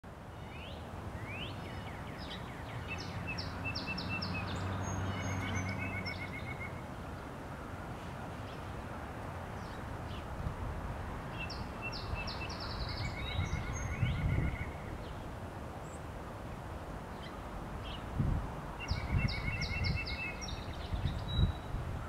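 Bohemian waxwings calling: three bouts of rapid trills with high chips, a few seconds apart. Low thumps come through near the end.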